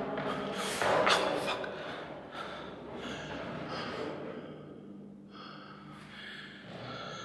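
A man breathing hard and gasping from the exertion of climbing a ladder, loudest about a second in and then quieter.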